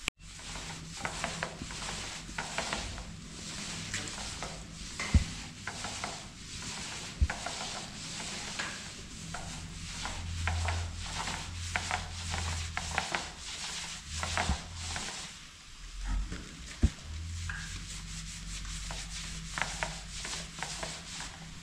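Paint roller rubbing over a wall in repeated strokes, and rolled back and forth in a paint tray to reload. A few sharp knocks fall among the strokes.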